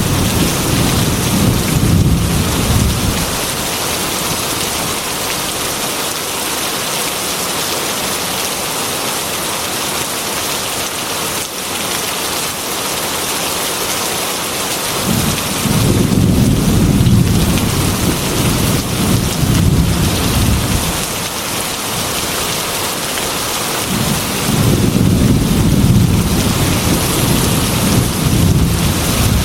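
Heavy rain pouring steadily on a metal roof, with rolling thunder rumbling low three times: in the first few seconds, for several seconds past the middle, and again near the end.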